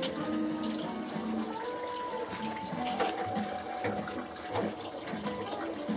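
Rustling and a few light clicks as a thermostat probe's wire is pulled down through a hole in a pellet grill's sheet metal.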